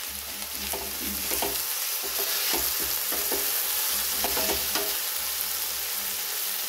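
Chopped onion, peas, capsicum and tomato sizzling in hot oil in a pan, stirred with a wooden spatula that scrapes across the pan in repeated strokes.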